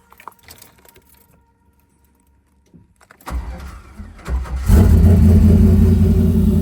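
Car engine being started: the starter cranks it for about a second and a half, then it catches and runs steadily. The owner thinks something is going on with the starter.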